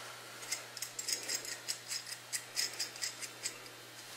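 Faint, irregular run of light metallic clicks and ticks: small metal hardware (hooks, nuts, washers) being handled, ending about half a second before the end.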